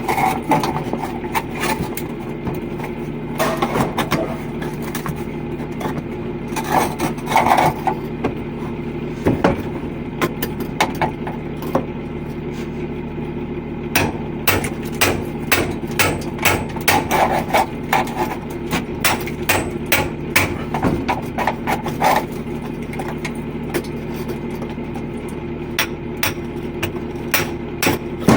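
Sharp hammer strikes and knocks, coming irregularly with a fast run of blows in the middle, over a steady machinery drone.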